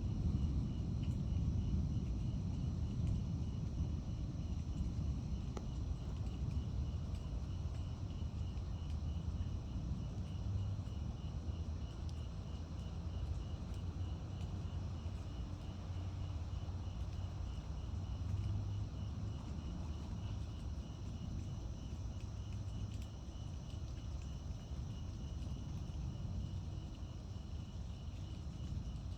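An insect chirps steadily in even, rapid pulses at one high pitch, over a continuous low rumbling noise.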